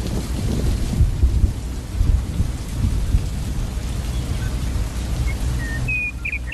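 A loud, uneven low rumble under a steady hiss, with a few short high chirps near the end.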